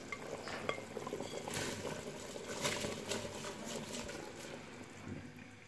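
Spiced meat broth simmering in a pressure cooker as dry long-grain rice is poured into it, with a few small clicks.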